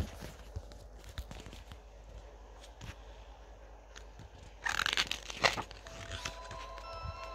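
A book's paper page being turned, a loud papery rustle lasting about a second, roughly five seconds in, with a few faint handling clicks before it.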